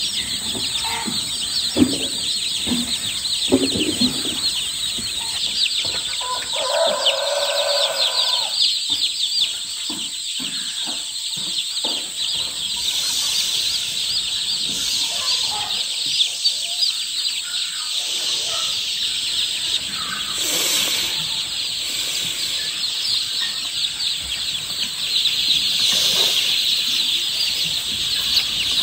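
A brood of newly hatched chicks peeping continuously, many high-pitched calls overlapping.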